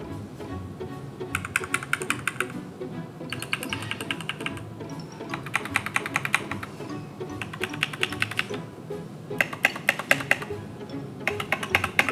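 Gateron mechanical keyboard switches on an AKKO 3068V2 keyboard clicking in six short runs of rapid keypresses, each about a second long, over background music.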